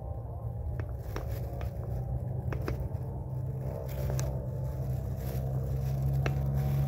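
An engine running steadily, its hum growing gradually louder, with scattered light clicks and knocks.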